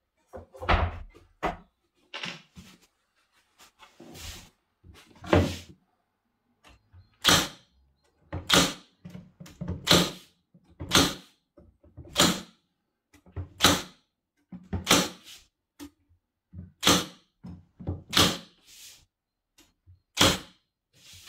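Milwaukee M18 FUEL cordless narrow crown stapler firing staples down through the cupboard's top panel, a sharp shot about every second and a half, about ten in all. Before the shots, lighter knocks as the panel is handled into place.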